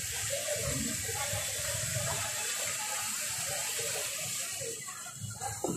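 Steady hiss of hot oil sizzling in a street-food deep fryer, with faint chatter underneath, and a sudden louder noise at the very end.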